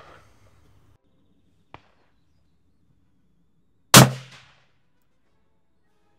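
A single shot from a bolt-action rifle fitted with a moderator (sound suppressor): one sharp, loud crack about four seconds in that dies away within about half a second. A faint click comes a couple of seconds before it.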